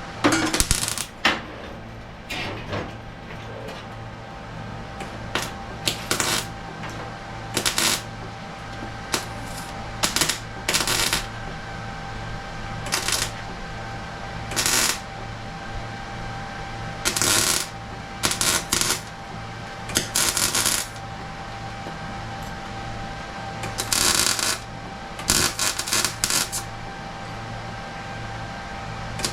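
Sheet-metal fabrication work on a golf cart fender: about a dozen short, irregular bursts of crackling, clattering metal noise, each under a second or so, over a steady shop hum.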